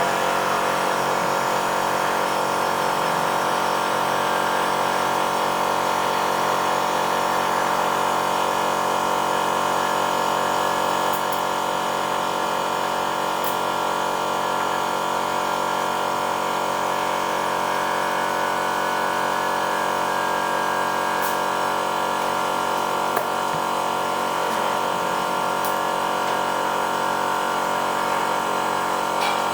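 Shop air compressor kicking on and running steadily with a constant mechanical hum.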